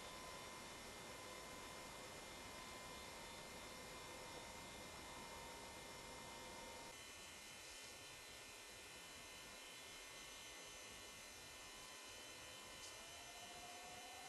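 Near silence: a faint steady hiss and hum from the recording, with no bird call heard. A faint rising whine starts near the end.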